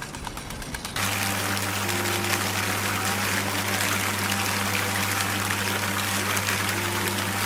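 Rapid regular ticking, then, starting abruptly about a second in, a steady loud rushing hiss over a constant low electric-sounding hum.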